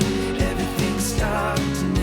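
Background music: a pop-country song with guitar and a steady beat.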